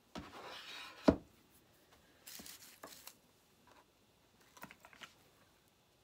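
Handling sounds at a craft table: a rustle, then a single sharp knock about a second in, another short rustle, and a few light clicks and taps near the end as craft supplies are moved and picked up.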